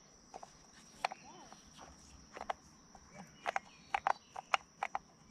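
Scattered sharp clicks and taps, irregularly spaced and more frequent in the second half, from hands working a spincast fishing reel and rod. Under them runs a steady high-pitched insect drone.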